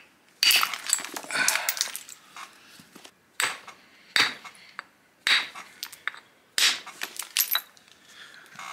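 Stone clinking and knocking on stone in about eight sharp, irregularly spaced strikes, some with a short scrape, as a basalt axe-head blank is worked with a hammerstone.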